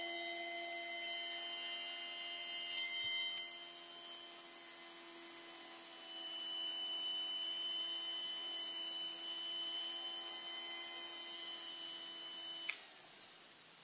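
Blender motor with its field coils rewound for 12 volts, running with a steady high whine and humming tones. About a second before the end it cuts off with a click and dies away.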